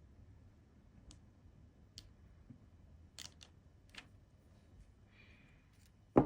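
Small clicks and taps of seal-stamping tools handled on a desktop, sparse and faint, then one sharp knock near the end.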